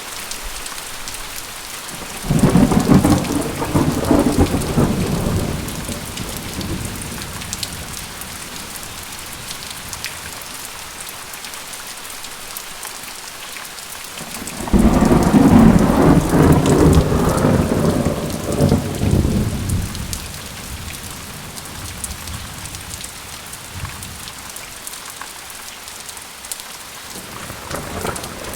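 Thunderstorm: steady rain falling, with two long rolls of thunder, one about two seconds in and one about halfway through, each rumbling for several seconds before fading back into the rain. Another thunder roll starts right at the end.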